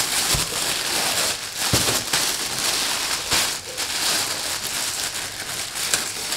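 Thin white tissue-paper wrapping rustling and crinkling as it is pulled open by hand, with a few soft knocks.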